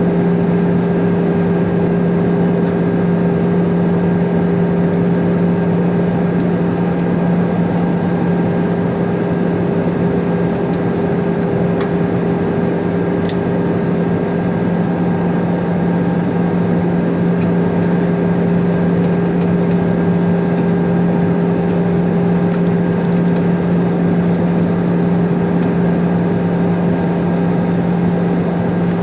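Cabin noise inside an Airbus A320-214 in flight: the steady drone of its CFM56-5B engines and rushing air, with a constant hum of several steady tones and no change in pitch or level.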